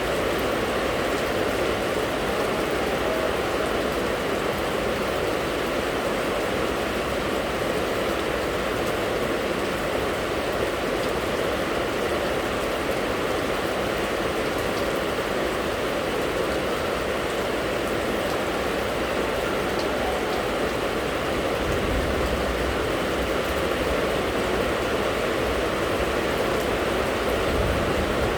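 Steady rain falling in a constant, even hiss with no letting up. A low rumble joins underneath about three quarters of the way through.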